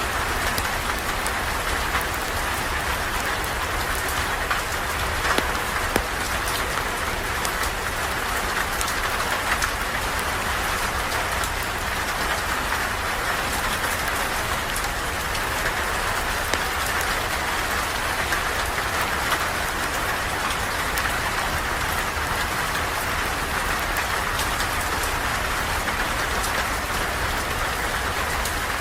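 Steady rain falling, an even hiss with scattered small sharp ticks throughout.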